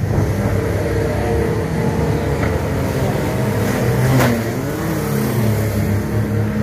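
Banger-racing vans' engines running hard and revving on the track, the pitch swooping as one passes close by about four seconds in, with a brief knock at the same moment.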